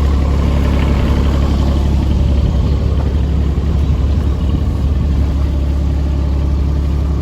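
Kubota excavator's diesel engine running steadily with a deep, even drone.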